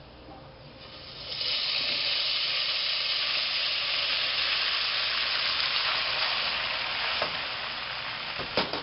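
Hot oil in a large pot sizzling loudly as wet, freshly drained penne is tipped in from a colander; the sizzle swells about a second and a half in and eases slightly near the end, where a few sharp knocks are heard.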